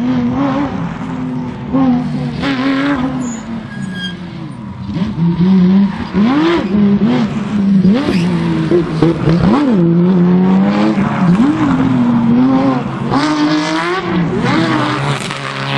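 Porsche 911 GT3 rally car's flat-six engine at full stage pace. Its pitch swoops up and down again and again as the car accelerates, lifts off and changes gear, with several hard climbs in revs near the end.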